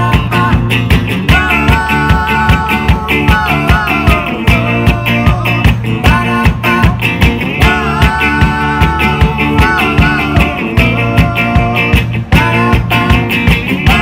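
Live rock band playing: a Guild hollow-body electric guitar and an electric bass over a steady beat, with long held wordless vocals from a male and a female singer.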